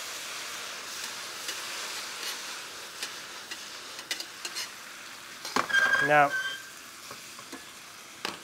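Spaghetti and pancetta sizzling in a frying pan as they are tossed with metal tongs, the tongs clicking against the pan several times in the first half. The hiss eases off gradually toward the end.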